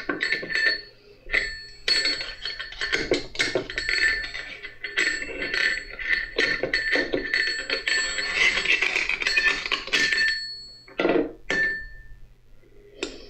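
Steel tool striking the bearing on a Kubota front axle ring-gear assembly to work the bearing off: a run of irregular metal-on-metal clinks, about two a second, each ringing briefly. The clinks pause shortly before the end and then a few more follow.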